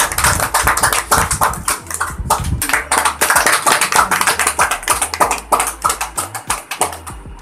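A small group of people clapping their hands: dense, quick claps that stop near the end.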